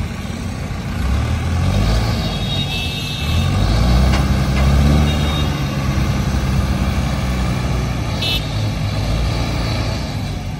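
Heavy diesel engines of an Escorts Hydra crane and a JCB backhoe loader running hard under load as they haul on an overturned truck, building about a second in and loudest around the middle. Short high-pitched beeps sound around three seconds in and again near the end.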